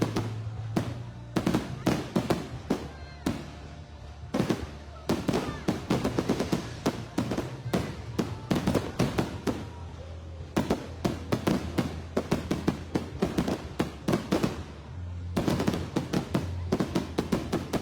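Fireworks going off in rapid succession, a dense stream of sharp cracks and bangs with only brief lulls.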